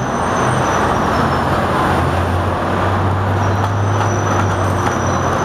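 Motor vehicle running close by on the street: a steady low engine hum under a loud, even rushing noise.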